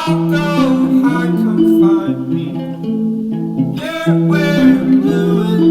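Background song: a singer's voice over guitar.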